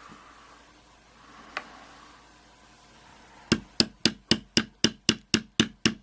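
A run of ten sharp metallic taps at about four a second on a Union 5-pin oval lock cylinder, starting a little past halfway, knocking out a pin that then drops free. Before them, faint handling clicks.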